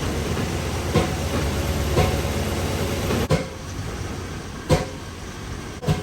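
Chevrolet 5.7 L Vortec V8 running in a 1997 Silverado under a little load, a steady low rumble that drops a little about halfway through. Five sharp knocks about a second apart cut through it. The engine has a random misfire, which the owner suspects comes from a cracked distributor cap.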